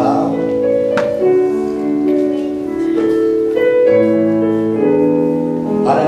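Instrumental introduction of a gospel praise song on keyboard, held chords changing every second or so, with one sharp hit about a second in.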